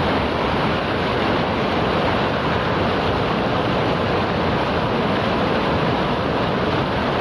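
River water rushing, a steady, unbroken rush of flowing water.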